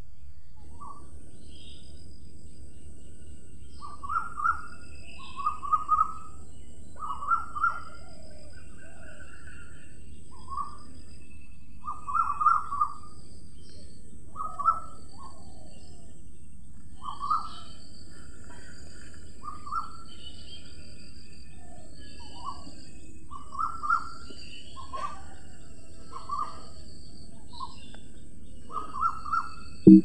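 Parakeets calling: short, sharp calls repeated at irregular intervals, sometimes in quick pairs or runs, over a steady low background rumble.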